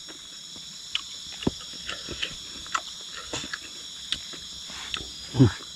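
Crickets trilling steadily in the night, with soft scattered clicks and smacks of someone eating with their fingers and chewing. A short voiced murmur from a person near the end.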